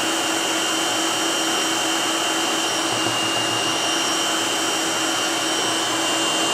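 Electric stand mixer running at high speed, beating eggs and sugar into a foam for sponge cake batter: a steady motor whir with a constant high whine.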